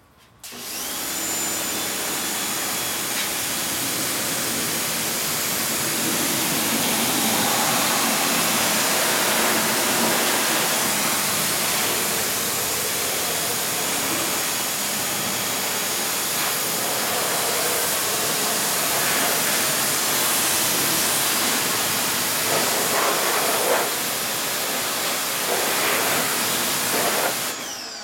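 Pressure washer spraying water over a car's engine bay: a loud, steady hiss of the jet striking the engine and its covers, starting just after the beginning and cutting off near the end.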